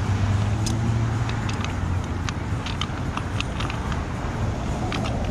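Steady low rumble of a motor vehicle engine, with scattered light clicks and taps from the valve parts being handled.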